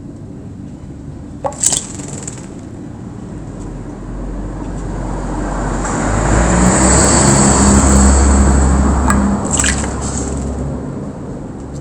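A vehicle passing, its low engine rumble and road noise swelling to a peak about seven or eight seconds in and then fading. Two short, sharp high sounds come about a second and a half in and again near the end of the swell.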